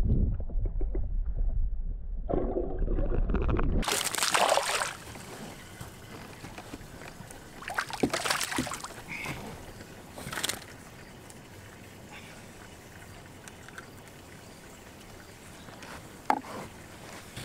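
Water rushing and churning past an underwater camera, a deep rumble that cuts off about four seconds in. Then come several short splashes of a hooked bass thrashing at the surface beside the boat as it is brought in by hand, with a sharp click near the end.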